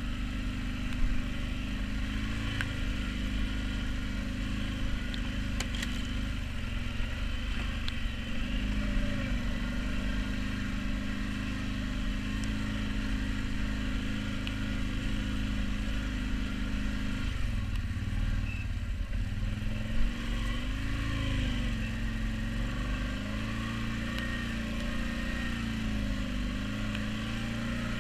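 CFMOTO Terralander 800 ATV's V-twin engine running at low, steady speed while the quad is ridden along a rough forest dirt track. The engine note dips and picks up again a little after two thirds of the way through, then wavers, with a few short knocks and clatter from the bumpy ground.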